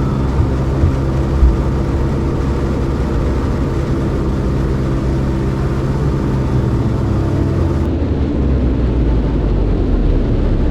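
Cessna 162 Skycatcher's Continental O-200 engine and propeller droning steadily in flight, with a few light knocks in the first second or so.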